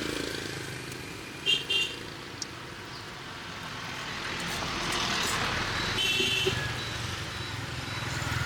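Street traffic passing, with a vehicle horn beeping twice in quick succession about a second and a half in and once more, longer, about six seconds in.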